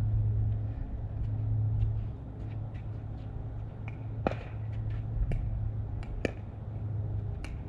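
Pickleball rally: sharp pops of the hard plastic ball off paddles and court, about one a second in the second half, over a steady low rumble.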